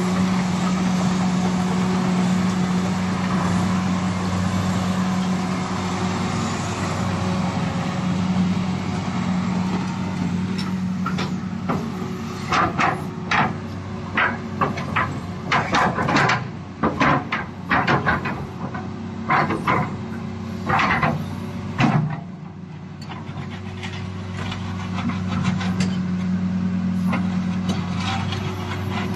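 Komatsu PC450 excavator's diesel engine running steadily, with a run of short, sharp knocks in the middle. The engine drops off briefly about three quarters of the way through, then builds back up.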